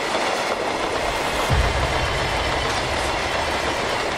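Freight train of loaded-style hopper wagons rolling past close by: a steady rumble and rattle of steel wheels on the rails. A heavier low rumble with a thump sets in about a second and a half in.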